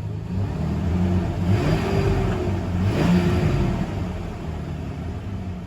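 2003 Ford Ranger engine running smoothly after new spark plugs, plug wires and coil cured a bad misfire. It is revved up twice, a little over a second apart, and drops back toward idle.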